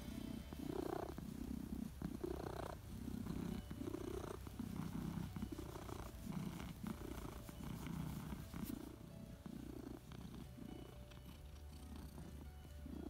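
Long-haired tabby cat purring steadily while being stroked on the head and chin, the purr swelling and fading in waves about twice a second.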